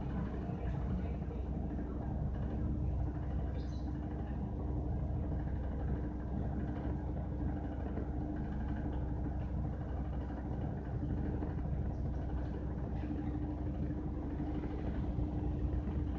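Washing machine running, a steady low rumble with a constant humming tone over it.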